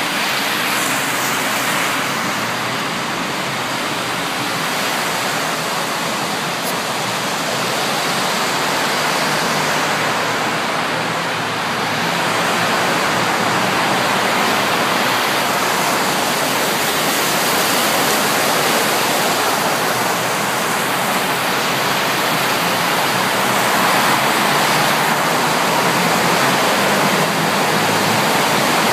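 A car driving through deep floodwater: a steady rush of water churned up by the wheels and sprayed against the car body. It grows a little louder about twelve seconds in.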